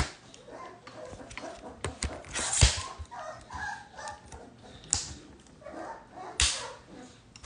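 Greater Swiss Mountain Dog puppies, about four weeks old, whimpering and crying in short high calls, wanting to get out to their mother. A few sharp knocks and rubbing from the phone being handled.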